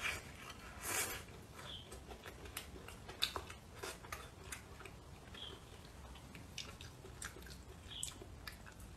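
A person eating close to the microphone, biting and chewing a plate of spicy chicken feet and potatoes. The chewing comes with irregular mouth clicks and smacks, the loudest about a second in and about three seconds in.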